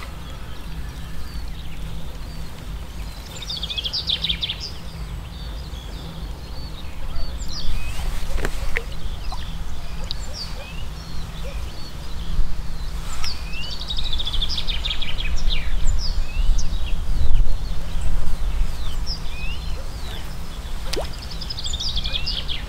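Small songbirds singing in repeated trilled phrases with scattered short chirps, over a steady low rumble, with a couple of sharp clicks.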